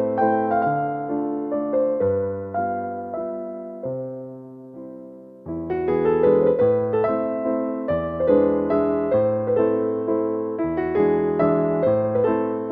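Slow piano music: sustained notes and chords that die away about four seconds in, then a new phrase begins about a second and a half later.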